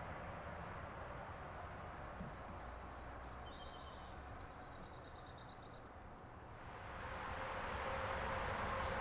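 Quiet woodland ambience: a steady hiss of breeze that swells louder over the last couple of seconds. Faint high bird chirps and a short rapid trill come around the middle.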